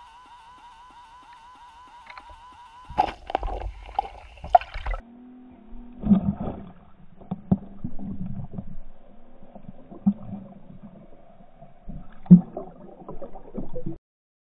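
A wavering musical tone at first, then water gurgling and sloshing with irregular knocks and thumps. The sound cuts off suddenly near the end.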